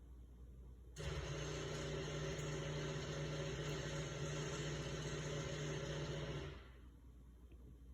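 Ice machine running with a loud, steady hum and whir that starts suddenly about a second in and cuts off about five and a half seconds later.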